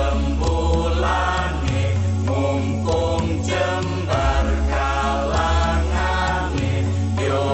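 Background music: chanted singing over sustained bass notes that change every second or two.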